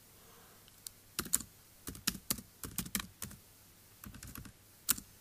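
Keys of a computer keyboard being typed, a run of quick, irregular clicks beginning about a second in.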